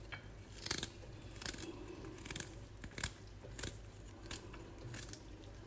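A knife slicing fresh ginger into fine pieces, in a series of short, crisp cuts about one to two a second.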